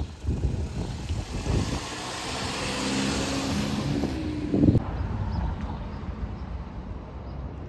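Airliner flying overhead: a rushing engine noise with a steady hum that swells to its loudest about three seconds in, then cuts off abruptly near five seconds into quieter, distant airport noise with wind on the microphone.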